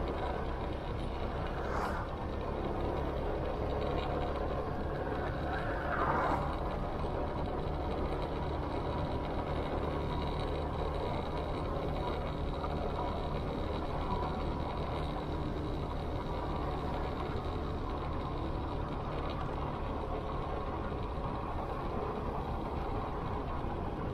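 Motorcycle engine running steadily at cruising speed, heard from the bike along with wind and road noise; a brief louder swell comes about six seconds in.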